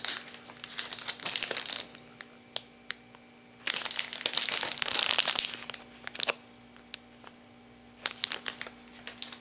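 Plastic bait packs of Jackall Chunk Craw soft-plastic lures crinkling as they are handled and shuffled, in two spells of a couple of seconds each, with a few lighter crinkles and ticks near the end.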